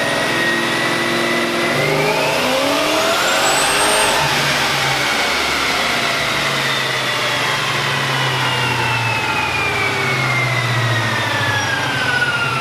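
Boosted V8 of a Dodge Charger SRT8 making a pull on a chassis dyno, running on all eight cylinders. The engine revs up over about two seconds with a rising high whine, then lets off, and a whine falls slowly and steadily in pitch as it coasts down.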